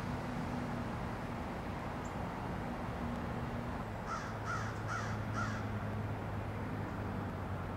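Diesel locomotives of a Norfolk Southern double-stack intermodal train running with a steady low hum as the train approaches. About four seconds in, a crow caws four times in quick succession.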